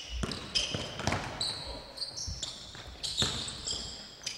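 Basketballs bouncing on a gym floor in an irregular string of thuds, several balls at once, with high squeaks over them.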